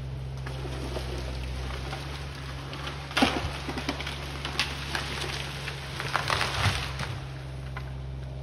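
Mini excavator engine running steadily while the tree it is pushing over cracks and splinters, with snapping of wood starting about three seconds in and a burst of cracking and crashing branches around six to seven seconds in as the tree comes down.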